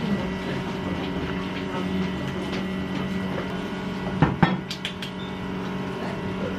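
A steady hum, with two sharp clinks a little over four seconds in.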